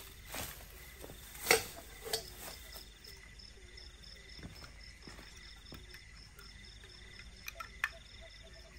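Night insects chirping in steady pulsing trills, with a few knocks and clicks of camping gear being handled and set down, the loudest about one and a half seconds in.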